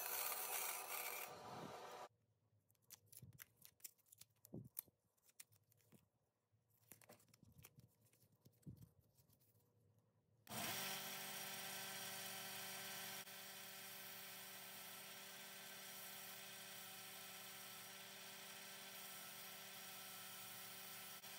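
Bandsaw cutting a wooden handle blank for about two seconds, then several seconds of near quiet with a few light handling clicks. About ten seconds in, a small benchtop belt sander's motor starts and runs steadily with a hum to the end.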